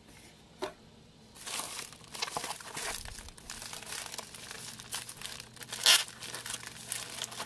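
Grey plastic poly mailer crinkling as it is handled and squeezed. It starts about a second and a half in, with a louder sharp crackle near six seconds.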